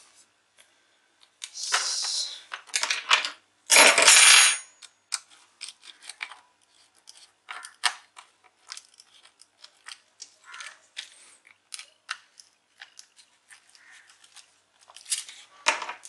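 Small metallic clicks and taps of a screwdriver, screws and fingers on a metal optical-bay hard-drive caddy as the 2.5-inch hard drive is screwed in. There are two longer scrapes in the first five seconds, and the one about four seconds in is the loudest.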